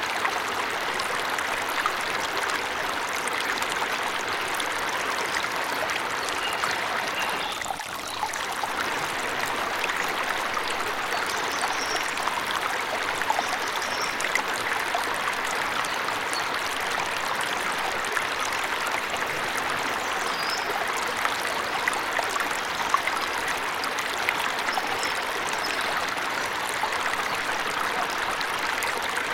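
Waterfall rushing steadily, with a brief dip about eight seconds in. A few faint, high bird chirps sound now and then above the water.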